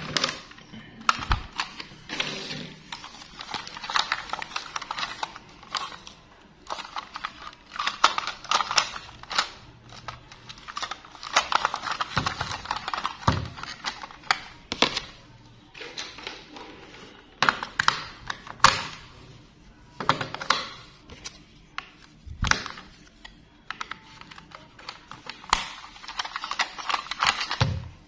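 Hard plastic toy trains handled by gloved hands: irregular clicks, knocks and rubbing as a plastic toy locomotive is turned over and its underside and wheels are fingered.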